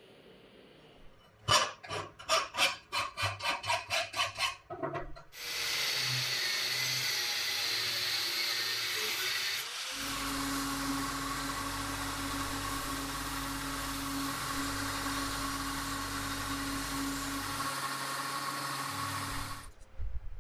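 A quick run of about a dozen sharp strokes, then a steady rushing noise, then an angle grinder cutting into an old steel file, running steadily with a constant hum for about ten seconds before cutting off suddenly.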